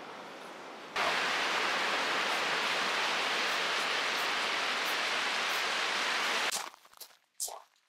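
Sea surf washing onto a sandy beach, a steady hiss that gets louder with a cut about a second in and fades out about six and a half seconds in.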